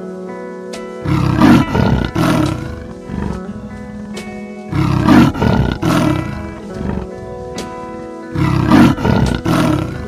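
A large animal roaring in three bouts, each a few rough pulses, about three and a half seconds apart, over steady background music.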